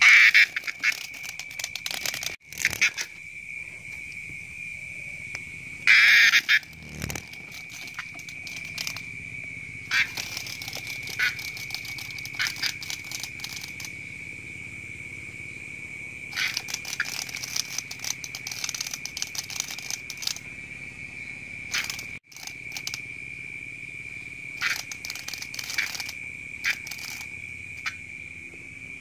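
Steady high-pitched insect trill running without a break, with scattered scratchy scuffles and clicks over it and two louder scratchy bursts, one at the start and one about six seconds in.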